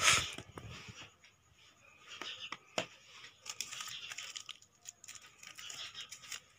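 Clear plastic blister pack crinkling and rustling as it is handled and cut open with scissors. The loudest part is a burst of crackling right at the start, followed by scattered sharp clicks and rustles.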